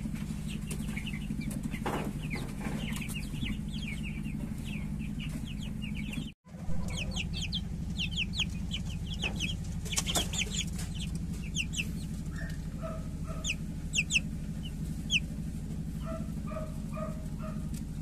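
Three-week-old chicks peeping over and over in short, high, falling chirps, with a few lower clucking notes in the second half. A steady low hum runs underneath, and the sound drops out briefly about six seconds in.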